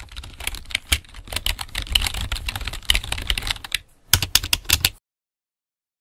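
Rapid key clicks of typing on a computer keyboard for about four seconds, then a second short burst of keystrokes. The sound cuts off abruptly into dead silence about a second before the end.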